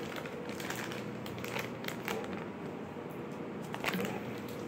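Plastic candy wrapper crinkling as it is torn open and handled, with scattered short crackles, the sharpest a little before the end.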